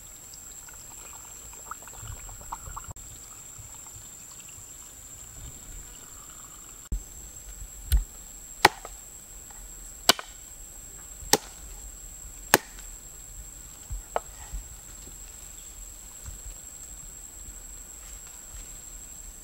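A knife chopping on a round wooden board: a series of about eight sharp, unevenly spaced strokes starting about seven seconds in, most of them about a second apart.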